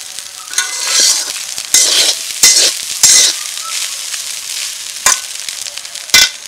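Spatula scraping and stirring a fish roe and potato fry in a metal pan, with oil sizzling steadily underneath. It comes as about six sharp scrapes, the loudest near the end.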